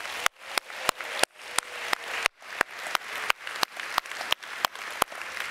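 A large audience applauding, with one person's claps, about three a second, standing out sharp and loud above the crowd's clapping.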